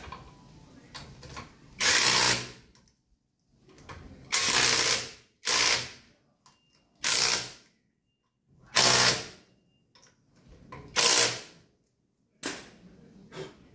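Ratchet wrench clicking in seven short bursts, running down the wheel lug nuts.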